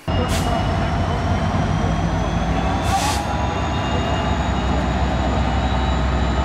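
Norfolk Southern diesel locomotive running past with a steady low engine drone and a thin high whine over it. Two brief hisses cut through, about half a second and three seconds in.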